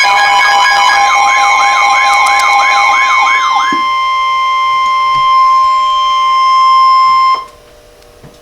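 Emergency Alert System alert tones: a loud steady two-tone attention signal overlaid with a warbling siren-like tone that rises and falls about three times a second. About three and a half seconds in, the two-tone and warble stop, leaving a single steady tone near 1 kHz, the weather-radio warning tone. That tone cuts off suddenly near the end, leaving only faint hiss.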